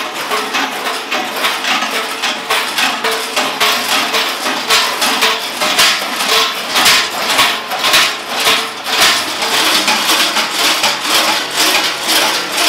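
Large bells worn by a group of Klaubauf (Krampus) figures, clanging continuously and unevenly as they walk. It is a dense, loud metallic clatter of many overlapping strikes over a steady ringing tone.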